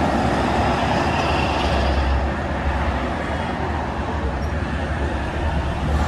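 Car driving at speed on an expressway: steady road and tyre noise with a constant low rumble.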